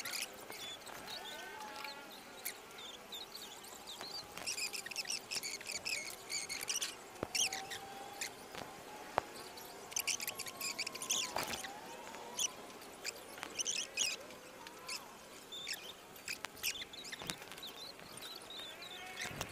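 Wooden matchsticks being set upright one by one on a cement floor, with scattered light taps and clicks. Faint high chirping comes and goes behind them.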